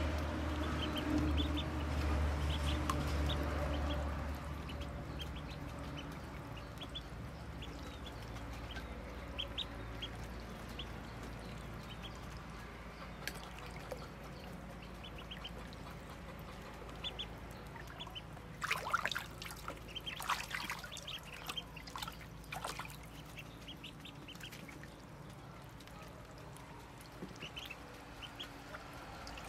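Muscovy ducklings peeping as they swim in a tub of water, short high chirps scattered throughout. A cluster of splashes comes about two-thirds of the way through.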